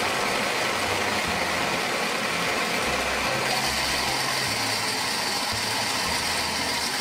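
Toy blender's small motor running steadily, mixing a load of M&M candies.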